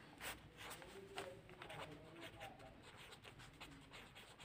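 Ballpoint pen scratching faintly on paper as a hand writes a few words in cursive.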